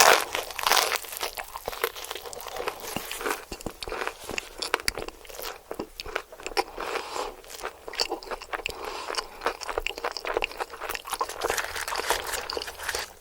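Close-miked bites and chewing of crispy fried chicken: dense crunching crackles throughout, loudest right at the start.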